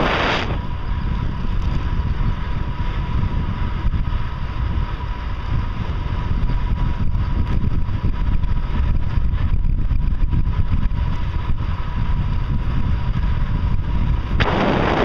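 Wind rumbling over a microphone on the move, with a faint steady whine under it that stops near the end, where the wind noise grows louder and hissier.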